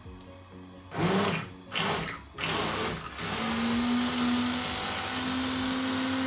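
Electric hand blender blending pancake batter in a bowl: it starts in a few short bursts about a second in, then runs steadily with a constant motor whine from about three seconds in.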